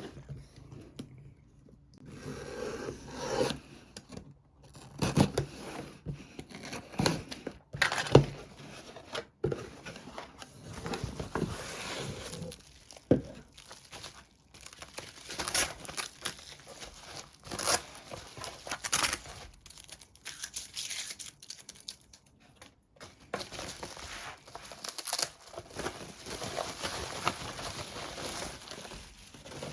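Parcel packaging being opened by hand: irregular tearing, cutting and crinkling of paper and plastic wrap, with small knocks and clicks, the sharpest about eight seconds in.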